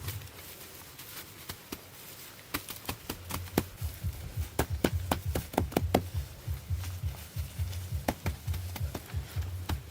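A series of sharp, irregular knocks and taps, coming in a quick cluster about halfway through.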